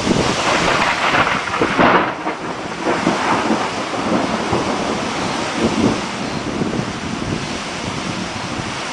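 Thunderstorm: rain and gusting wind with thunder. The sound is loudest over the first two seconds, then settles into a steady rushing hiss.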